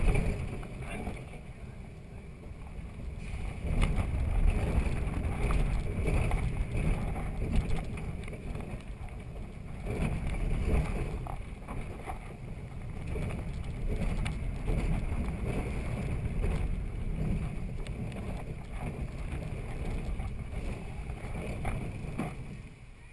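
Steel mine-train roller coaster running its course, heard from the front car: a continuous, uneven rumble and clatter of the train's wheels on the track, dropping away near the end as the train slows into the station.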